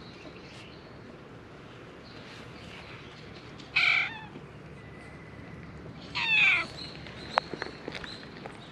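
A cat meowing twice: a short meow about four seconds in, then a longer meow that falls in pitch about two seconds later.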